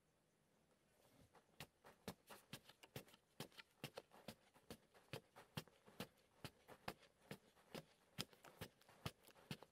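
A wooden digging stick jabbing again and again into dry, sandy soil, with loose earth spraying and pattering down; the strokes start about a second in and come several a second.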